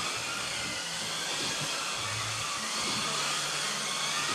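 Several Kyosho Mini-Z RWD electric RC cars racing, their small electric motors and gears making a steady high whine whose pitch rises and falls as the cars speed up and slow for the corners.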